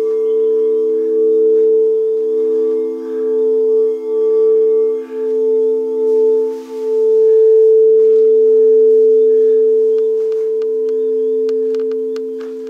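Crystal singing bowls played with a mallet, several bowls ringing together as three sustained tones that swell and dip in slow waves.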